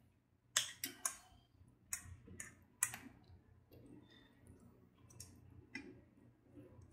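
Sharp clicks and knocks of a utensil against a mixing bowl, with soft scraping, as pumpkin bread batter is scooped into a loaf pan. The clicks come in a quick run over the first three seconds, then turn fainter and sparser.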